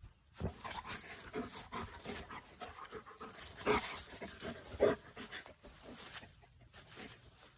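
Dog panting and snuffling with its nose down in the grass, in short irregular puffs of breath, two of them louder around the middle.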